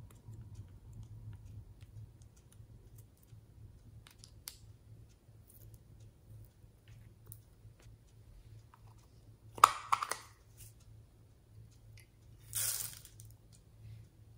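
Small plastic containers and a plastic spoon handled over a glass dish of slime toppings: scattered light clicks, a louder clatter about two-thirds in, and a short rattling pour near the end as sprinkles are tipped onto the pile.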